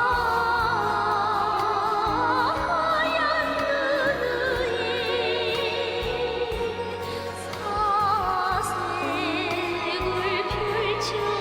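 Music: a North Korean pop song, with a vibrato melody line over a steady repeating bass.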